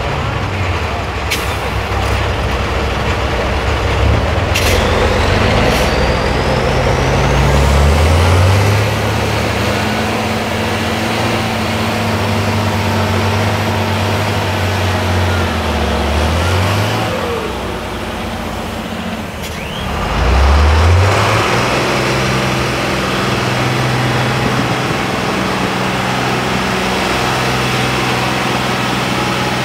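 Tatra 8x8 trial truck's turbo-diesel engine working hard under load in deep sand, revving up about eight seconds in, dropping back, and revving up again around twenty seconds in. A few short sharp clicks or hisses cut through.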